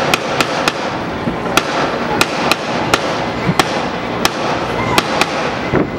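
Rifle shots, likely blanks, fired from a river boat: about a dozen sharp single cracks at uneven intervals, some in quick pairs, over a steady background noise.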